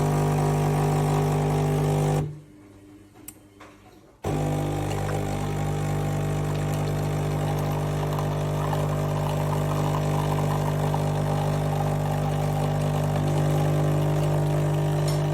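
Bean-to-cup coffee machine running with a steady, loud motor hum. The hum cuts off about two seconds in, pauses for about two seconds, then starts again and keeps going.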